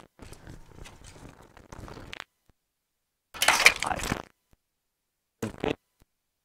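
A washing machine's wiring harness and plastic connectors being handled and pulled loose: faint rustling of wires, then a loud crackling, crunching burst of plastic about a second long a little past halfway, and a shorter clack about a second later.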